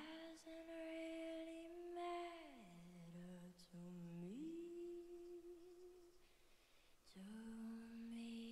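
A young girl's unaccompanied voice, wordless and hummed, holding a few long, steady notes that slide down to a low pitch and back up. It is faint.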